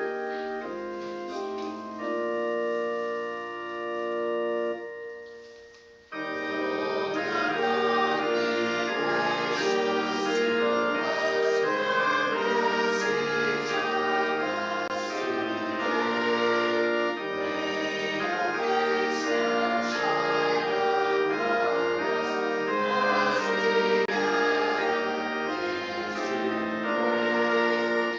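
Church organ plays a hymn introduction, stops for a moment about six seconds in, then the congregation starts singing the hymn with the organ accompanying.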